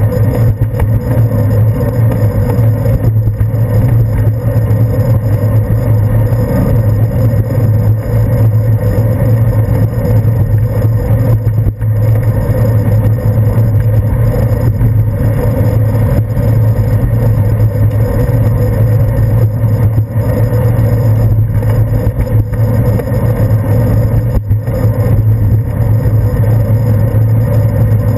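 Steady, loud low rumble of a bicycle rolling along a city street, picked up by a GoPro Hero 2 in its housing on the handlebars: road vibration through the mount and wind over the case.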